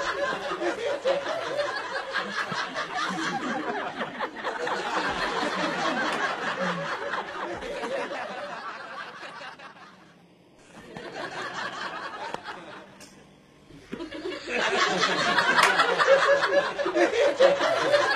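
Audience laughter, a laugh track: it rolls on, fades away about ten seconds in, comes back briefly, dips again, and swells loudly for the last few seconds.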